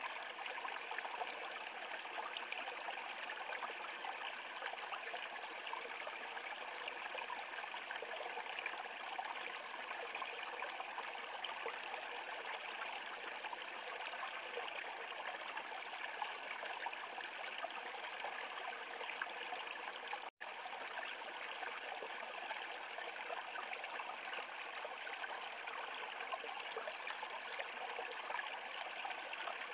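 Small stream splashing and trickling over a low, ice-edged step of rocks into a pool. It is a steady rush of water, broken by a split-second dropout about two-thirds of the way through.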